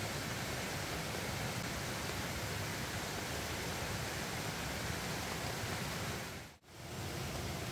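Steady rushing of running water, an even hiss with no single event standing out. It fades briefly to silence about six and a half seconds in, then comes back.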